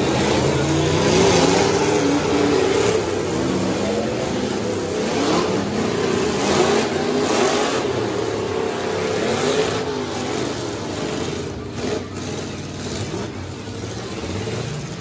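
Several demolition derby trucks' engines revving and running at once, pitches rising and falling, with occasional sharp knocks of trucks colliding. The engine noise eases off after about ten seconds.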